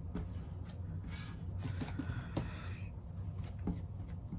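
A flat paintbrush spreading Mod Podge glue over a wooden board, a faint swishing that comes and goes with the strokes, with a few light ticks. A steady low hum runs underneath.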